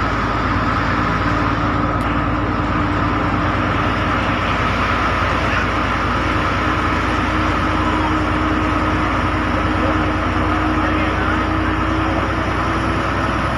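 A bus heard from inside its cabin while driving on a rain-soaked road. The engine gives a steady hum with a whine, over a constant hiss of tyres on the wet surface.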